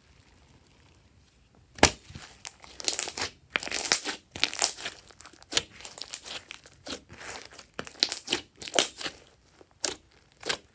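Hands squeezing and pressing glossy slime: an irregular string of short sharp clicks and pops as the slime is squashed and air pushes through it, starting with a loud snap about two seconds in.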